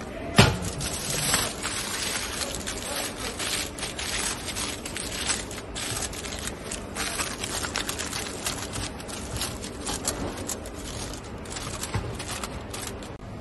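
Aluminium foil crinkling and rustling in quick irregular crackles as it is pressed down and crimped over a steel pan, with one loud knock about half a second in.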